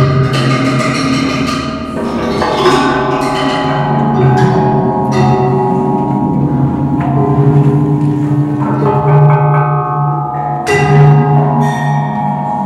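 Metal sound sculptures struck with mallets: a run of strikes about once a second, each ringing on in long overlapping bell-like tones, over a deep sustained ringing tone.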